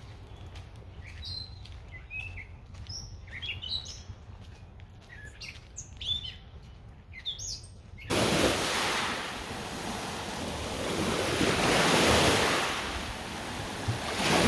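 Small birds chirping in short, quick calls over quiet surroundings. About eight seconds in, the sound switches abruptly to loud, swelling and ebbing surf of waves washing on a lake shore.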